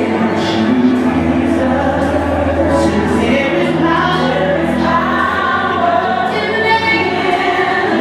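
Congregation and choir singing a gospel worship song, voices carried over a sustained bass note.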